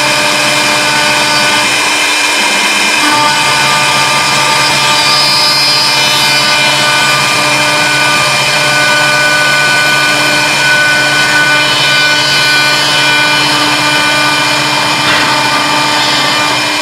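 CNC wood lathe with a router spindle running, its motors giving a steady whine of several held tones over a noisy machining rush. About three seconds in, a lower hum and a higher tone join in, as a motor changes speed or starts.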